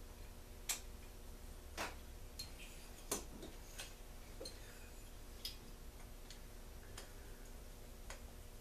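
Scattered light clicks and knocks of metal parts: the Stihl backpack blower's engine block being handled and fitted together with a small hand tool, about eight separate taps, the loudest about a second and three seconds in. A low steady hum runs underneath.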